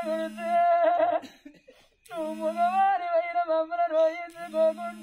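Oggu Katha folk singing: a single voice holding long, slightly wavering melodic notes, with a short break about a second and a half in. A steady lower note sounds beneath it at times.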